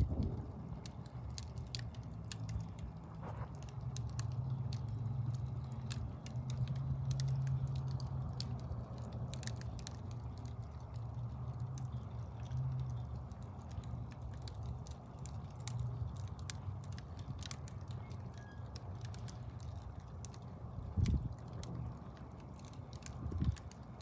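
Wood logs burning in an open fireplace: a steady low rush of flame with frequent, irregular sharp crackles and pops. Two louder low thuds come near the end.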